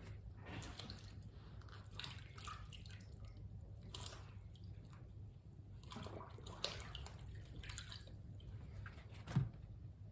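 Leek being washed by hand in a sink of water: faint, scattered splashing and dripping, with a soft knock about nine seconds in.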